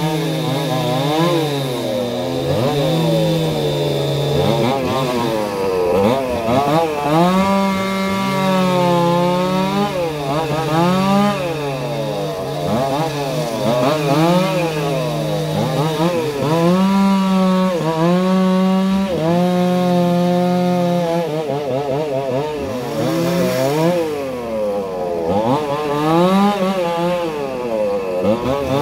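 Two-stroke chainsaw cutting up felled branches, the engine revving up and dropping back again and again, with held stretches at full throttle in the middle.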